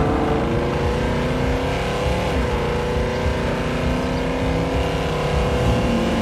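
Dubbed racing-car engine sound, the engines held at high revs at a steady pitch, with a brief dip in pitch about two seconds in.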